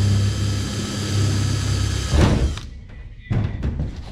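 Yellow DeWalt cordless drill running steadily as it bores through a metal deck panel. About two seconds in it is released and winds down, followed by a few sharp knocks as it is set down on the panel.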